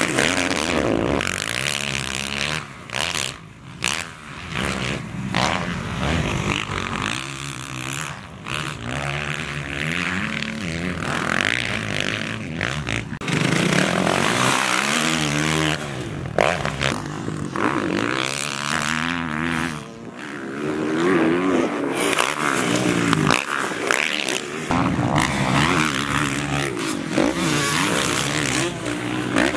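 Motocross dirt bike engines revving hard and backing off as the bikes jump and corner, pitch sliding up and down with each throttle change, one bike after another, with short dips where the sound cuts between clips.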